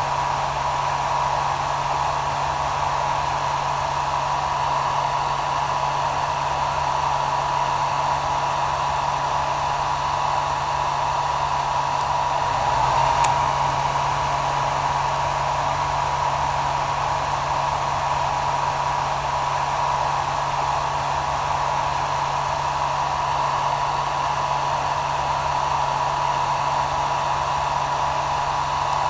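Hair dryer running steadily: an even blowing hiss with a constant whine and a low motor hum.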